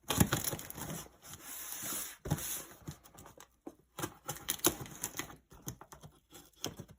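Pocket knife slitting the tape on a cardboard box and scraping along the cardboard, a run of irregular scratches and clicks.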